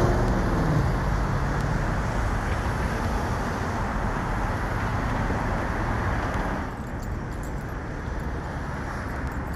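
City street traffic noise: a steady rush of passing cars, easing off about seven seconds in.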